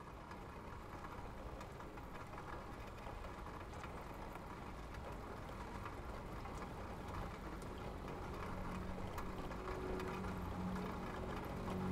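Ambient intro of a Norse pagan folk song: a soft, even wash of noise with faint scattered crackles, slowly growing louder, as a low sustained drone begins to come in near the end.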